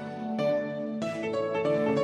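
Instrumental background music, a gentle melody of separate notes.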